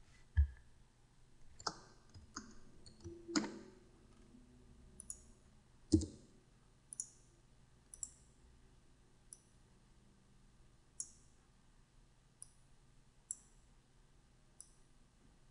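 Faint, scattered clicks of a computer mouse and keyboard, roughly one a second, with a few louder knocks among them, the loudest about six seconds in.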